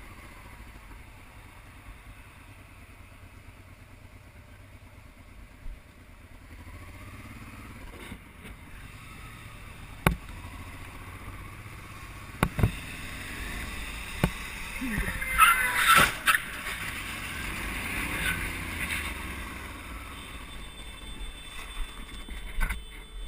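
Motorcycle engine and wind rumble heard through a helmet camera while riding. About two-thirds of the way in comes a sudden burst of loud bangs and screeching, the sound of a car and motorcycle colliding, followed by a few seconds of rougher scraping noise.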